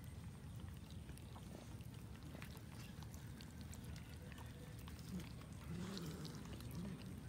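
Several cats chewing and tearing at a cooked chicken carcass, with scattered small clicks of teeth and tearing meat over a low rumble. Near the end, a cat gives a low, wavering growl.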